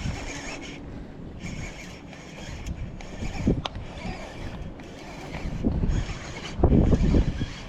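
Wind buffeting the microphone in gusts, loudest near the end, while a fishing reel is cranked in against a hooked fish.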